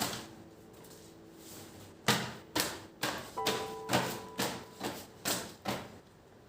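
A run of about nine sharp knocks, roughly two a second, starting about two seconds in and stopping shortly before the end.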